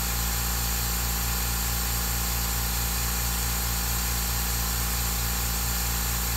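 Makita MAC100Q Quiet Series air compressor running steadily with a fast, even low pulse, its motor pumping up the tank toward its shut-off pressure of about 135 PSI.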